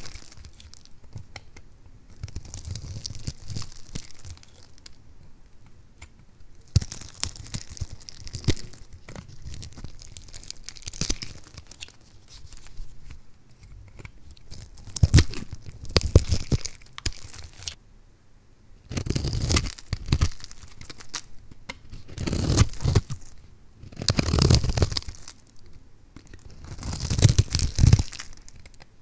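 A bare utility-knife blade cutting through a bar of soap scored into a grid of cubes, crisp crackling and crunching as the cubes snap off. It comes as a series of separate cuts, the loudest in the second half.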